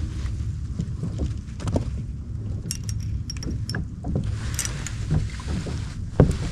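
Sounds of sitting in a kayak at sea: a steady low rumble of wind and water against the hull, a few light clicks about three seconds in, and a sharp knock on the kayak just after six seconds.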